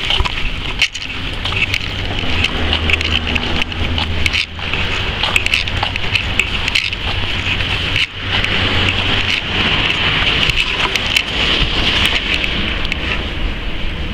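Steady rushing noise of wind and handling on a handheld camera's microphone while walking, dipping briefly a few times.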